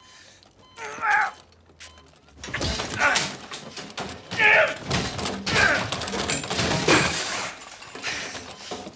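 A man grunting and groaning with strain, with thumps and crashing clatter of things being knocked about, busiest from a couple of seconds in.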